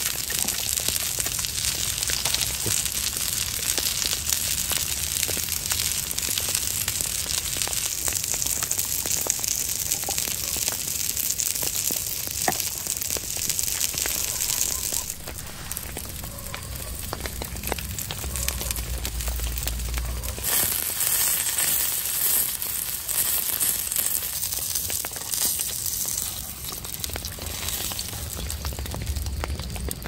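Burger patty frying in an oiled grill pan on a gas camping stove: a steady hissing sizzle scattered with small crackles and pops. It drops in level about halfway through, comes back a few seconds later and dips again near the end.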